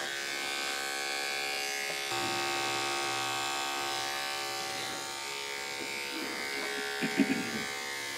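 Electric dog-grooming clipper fitted with a 7 blade, running steadily as it is worked through a dog's matted coat; its hum changes slightly about two seconds in.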